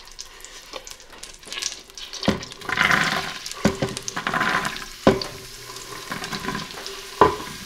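Diced carrots and onion tipped from a wooden cutting board into melted butter in an Instant Pot's steel inner pot on sauté mode: a few sharp knocks as the board and vegetables strike the pot, and sizzling as the vegetables hit the hot butter, starting about two seconds in.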